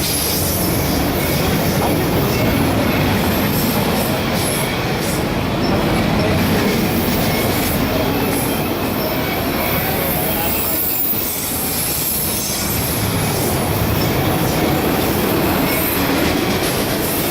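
Cars of a CSX freight train rolling past close by, steel wheels running on the rails in a steady, loud noise.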